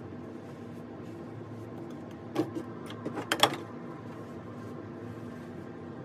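A few short knocks and clicks of hand tools being handled on a worktable: one about two and a half seconds in, then a quick cluster about a second later, the last the loudest.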